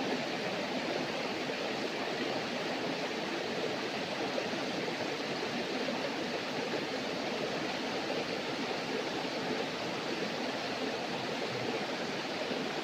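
Steady rushing of water from a waterfall-fed stream pouring into a bathing pool.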